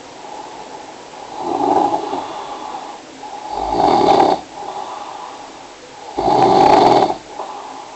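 Snoring in a steady rhythm: two loud snores about four and six and a half seconds in, with softer snoring breaths between them.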